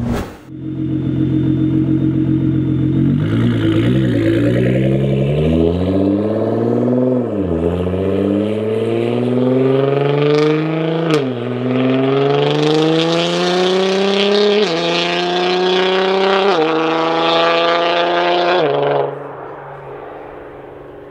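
Nissan GT-R's twin-turbo V6 accelerating hard through an aftermarket MH Pipes exhaust. Its pitch climbs steadily and drops at each of about four quick upshifts, then the sound falls away and fades near the end.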